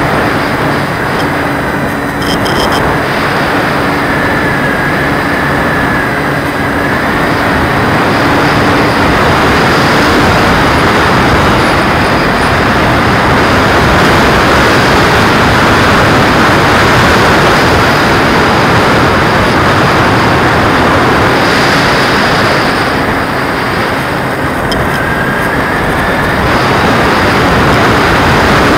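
Loud, steady rush of airflow and propeller noise picked up by a camera mounted on an RC Extra 300 aerobatic plane in flight. It swells partway through and eases a little later on as the plane manoeuvres.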